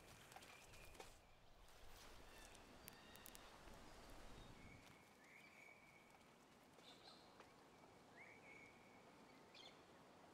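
Near silence with faint bird calls: three thin drawn-out whistles, a few seconds apart.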